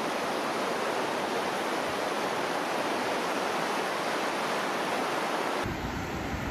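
Steady hiss of small waves washing in over a flat, wet sandy beach. Near the end it changes suddenly to deeper surf with wind buffeting the microphone.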